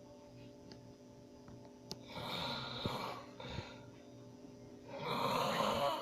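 A man snoring in his sleep: two long, rasping snoring breaths about three seconds apart, the second louder.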